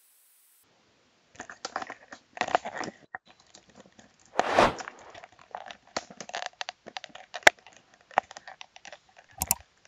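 Irregular crinkling and crackling with scattered sharp clicks. The loudest burst comes about four and a half seconds in.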